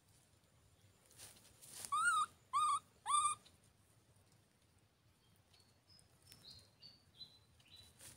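Baby macaque giving three short coo calls in quick succession about two seconds in, each rising and falling in pitch. Fainter high chirps follow near the end.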